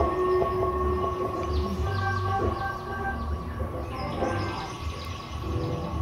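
Live experimental electronic music from a small electronic instrument: steady held tones over a low, pulsing rumble, with short higher blips and chirps coming and going.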